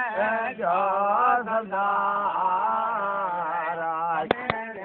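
A man's voice chanting in a continuous sung recitation, the pitch held and gliding over a steady low note. Two sharp clicks come close together near the end.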